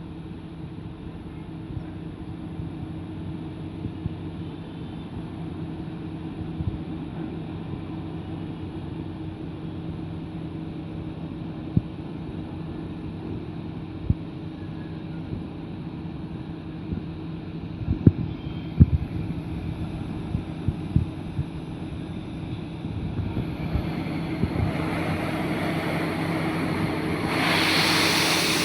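Heavy drilling machine's engine running steadily, with a cluster of sharp knocks about two-thirds of the way in and a loud rushing noise building up near the end.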